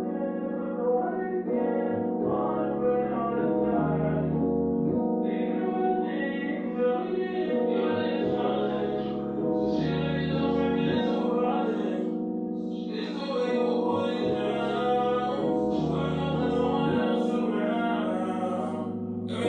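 Background music: a slow piano-and-keyboard track with sustained chords and a melodic line.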